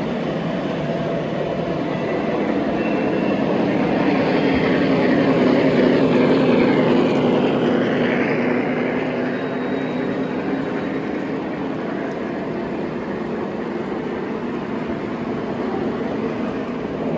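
Three-rail model trains running on the layout: a steady rolling rumble that swells a little about five to eight seconds in and then eases off.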